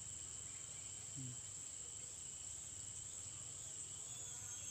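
Steady, high-pitched insect chorus trilling without a break.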